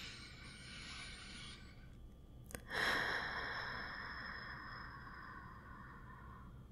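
A woman's slow, soft breathing close to the microphone: one breath, a small click about two and a half seconds in, then a long breath out that fades away.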